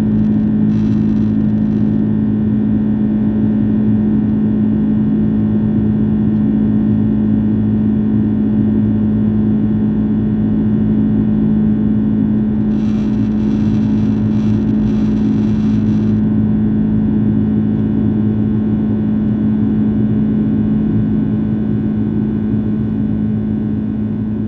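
Steady drone of an Airbus A330's engines heard inside the passenger cabin: a strong, even hum over a low rumble of engine and airflow noise. It eases slightly near the end.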